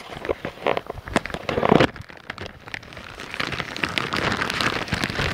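Plastic bags crinkling and rustling as they are handled and unwrapped. Irregular crackles run throughout, with a louder rustle a little under two seconds in and denser, steady crinkling in the last couple of seconds.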